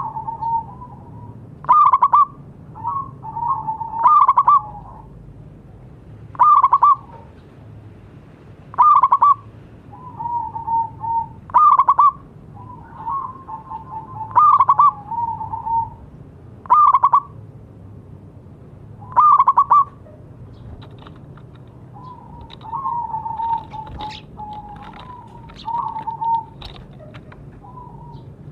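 Zebra dove (perkutut) cooing: a loud cooing phrase repeats about every two and a half seconds, with softer trilling coos between. After about twenty seconds only the softer coos go on.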